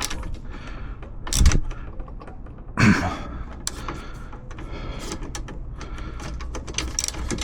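Irregular light clicks and knocks of hands and tools working on a metal dash-bar mount, with two louder knocks about a second and a half and three seconds in.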